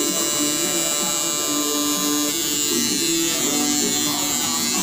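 Tattoo machine buzzing steadily while lining into an EVA foam practice sheet.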